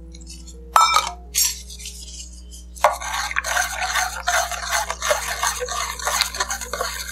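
Metal spoon stirring sodium hydroxide into water in a stainless steel mug, clinking and scraping quickly against the mug's sides from about three seconds in, to dissolve the lye. Before that, a couple of sharp metal clinks as the steel cups are handled.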